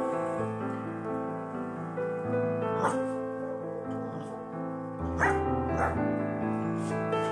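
Soft piano music, with three short high puppy barks cutting in: one about three seconds in and two close together a couple of seconds later.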